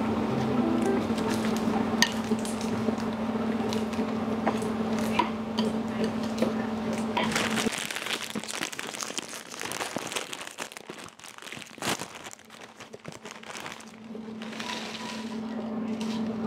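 A crinkly foil chip bag rustling and crackling as it is handled and opened, with light clicks and knocks of food being handled on a plate. Chips rattle out of the bag onto the plate near the end. Under the first half and again near the end runs a steady low hum, which cuts off suddenly about eight seconds in.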